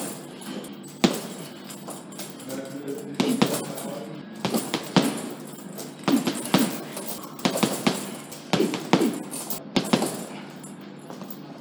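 Boxing gloves punching a hanging Leone heavy bag in short combinations of two or three blows, each group a second or more apart.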